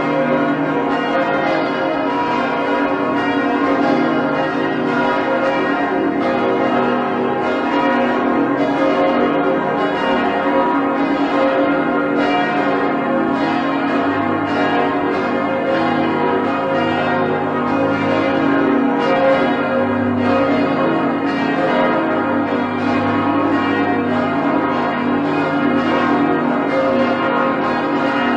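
Church bells ringing continuously, struck in quick succession so that their tones ring on into one another without a break.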